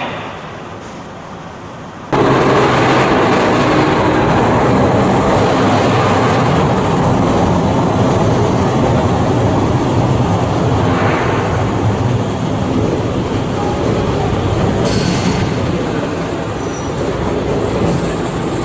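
Hakone Tozan funicular cable car moving through the station: a loud, steady rumble of its wheels on the rails. It starts about two seconds in, after quieter station noise with a few light clicks. There is a brief hiss near the end.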